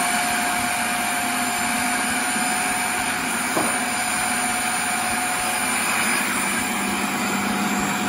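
Food processor motor running steadily while it mixes cake batter, with milk being added through the feed tube to loosen it.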